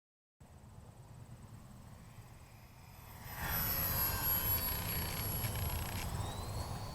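Twin electric motors of a Multiplex Twinstar II model plane whining. Over a low rumble of wind, they get louder about three seconds in, and their pitch shifts as the plane flies.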